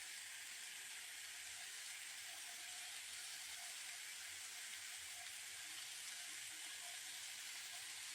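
Vegetables sizzling steadily as they sauté in a hot pan.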